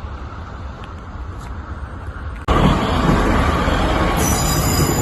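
Northern Class 156 diesel multiple unit running at the platform as it moves off, a steady low engine rumble. About halfway through, the sound jumps suddenly much louder and stays loud.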